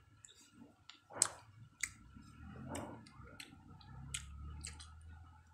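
Chewing juicy fresh pineapple: scattered wet mouth clicks and smacks, the sharpest about a second in.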